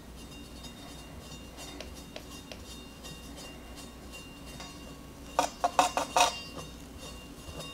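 Faint scraping and light ticks of a metal offset spatula smoothing whipped cream, then, a little past halfway, a quick run of five or six sharp metallic clinks from metal cake-icing tools knocking against metal.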